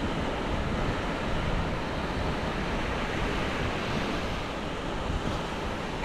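Small sea waves breaking and washing up a sandy beach: a steady surf wash, with wind buffeting the microphone.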